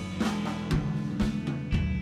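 Live rock band playing: drum kit hitting about twice a second under sustained bass and electric guitar chords.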